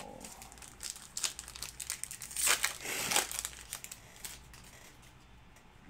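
Panini Chronicles football card pack wrapper being torn open and crinkled by hand, an irregular rustle that is loudest about two and a half to three seconds in.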